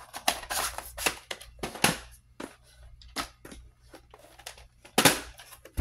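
Clicks and rustles of VHS tape cases being handled and swapped. They come thick in the first two seconds, then sparser, with a sharper knock about five seconds in.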